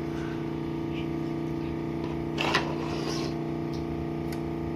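Phone-screen separator heating machine running with a steady low electric hum, warming the phone to soften the screen glue. A brief short noise about halfway through.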